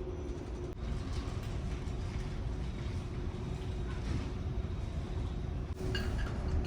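Steady low rumble and hum of a large car ferry underway, its engines and hull droning.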